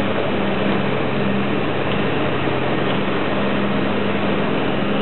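Ice resurfacing machine running, a steady engine drone with a low hum.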